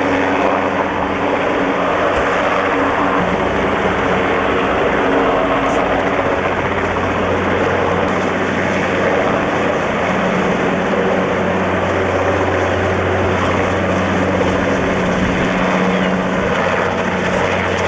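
Yellow search-and-rescue Westland Wessex helicopter hovering low over the water: steady, loud turbine and rotor noise with a constant low hum, held in the hover while a man is lowered on the winch.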